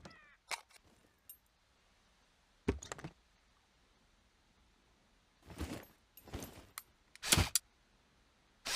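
Auto crossbow sound effect: a series of separate mechanical clicks and clacks, some as short rattles. There are sharp clicks in the first second, a double clack about three seconds in, and rattles around five and a half to seven seconds. The loudest clack comes about seven seconds in, and a longer rattle starts right at the end.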